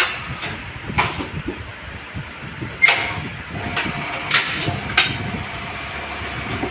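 Tyre-changing work on a car wheel: scattered sharp metal knocks and clanks, four or five of them, over steady workshop noise.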